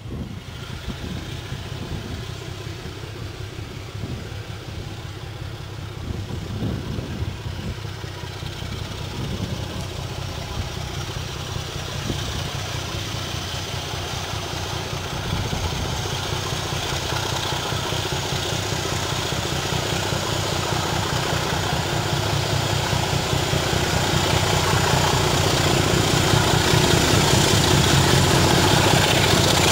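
BR Class 25 diesel locomotive's Sulzer six-cylinder engine working under power as it pulls a passenger train toward and past the listener, growing steadily louder, with a faint high whine rising over the engine note.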